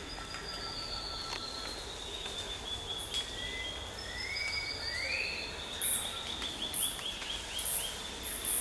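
Tropical forest ambience: birds singing descending runs of notes and short rising calls over a steady high insect drone. In the second half, short high hissing pulses come about once a second.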